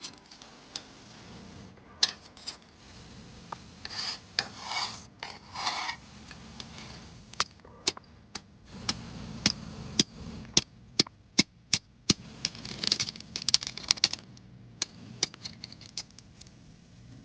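Hand work with small hard objects: irregular sharp clicks and taps, with bouts of rubbing and scraping between them.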